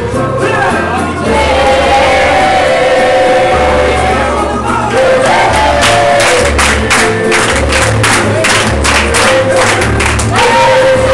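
Pop music with a steady bass beat and singing. About halfway in, rhythmic handclapping to the beat joins in and stops shortly before the end.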